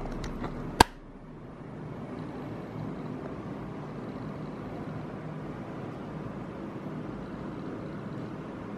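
Background music fading out, then a single sharp click about a second in, followed by a steady, even background noise with no distinct sounds in it.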